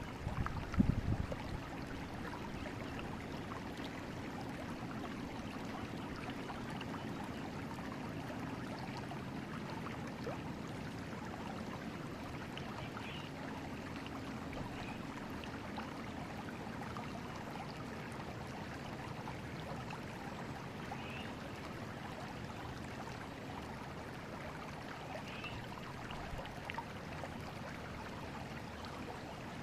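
A river flowing steadily, an even rush of water through the whole stretch. About a second in there is a brief low thump, the loudest moment.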